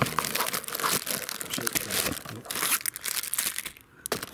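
Plastic packaging crinkling and rustling as it is handled in an unboxing, a dense run of crackles that drops away briefly near the end.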